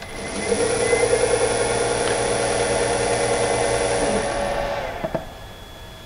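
Electric motor run in jog mode by a variable frequency drive. It spins up as the jog input is made, runs steadily for about four seconds with a high whine from the drive, then winds down and stops.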